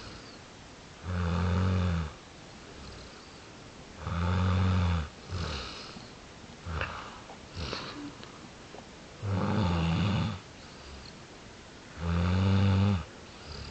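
Loud snoring: four long, low snores of about a second each, with a few fainter short sounds between the second and third.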